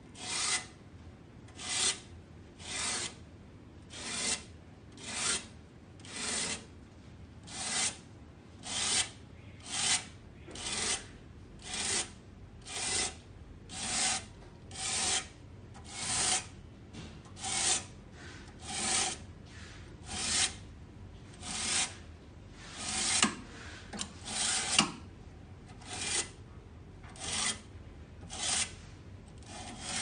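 Stainless-steel AC fin comb drawn again and again down through the fins of an air-conditioner condenser coil, straightening and cleaning them: a scraping rasp on each stroke, a little more than a second apart.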